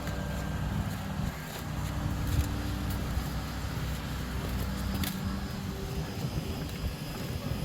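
Vehicle engine running steadily, a low hum.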